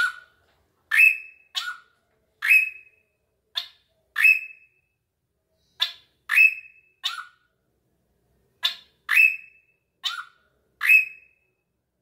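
A caged drongo calling in a series of about a dozen short, sharp notes, each starting suddenly and ending in a brief clear tone, some dipping in pitch. There is a pause of about a second and a half just past the middle of the series.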